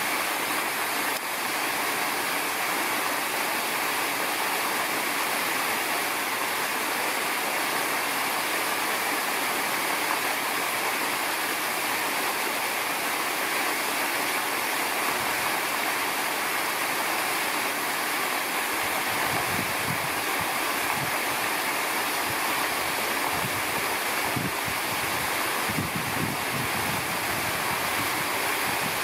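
Steady rushing noise, with low rumbling gusts coming in about two-thirds of the way through.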